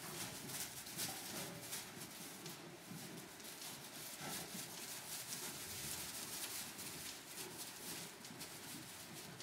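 Lambs' hooves rustling and crackling in loose straw bedding as they walk and skip about, with many small irregular crackles throughout.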